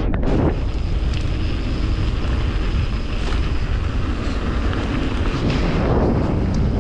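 Wind buffeting the camera microphone of a moving e-bike, a steady low rumble, with scattered small rattles and knocks from the bike over the ground.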